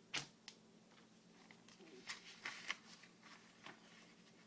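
Faint handling noises, soft rustles and light clicks: two sharp ticks near the start, a denser cluster of rustling about two seconds in, and one more tick near the end.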